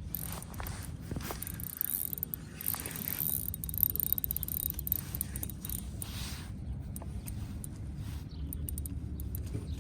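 Small ice-fishing reel being cranked, with quick ratchet-like clicking, as a hooked fish is reeled up through the hole.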